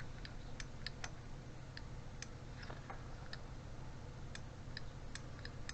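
Light, irregular plastic clicks and taps as a car's electric window switch is handled and turned over in the hands, about a dozen over a few seconds, with a low steady hum underneath.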